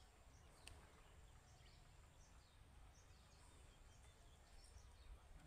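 Near silence: faint outdoor ambience with a low rumble and scattered short, high bird chirps.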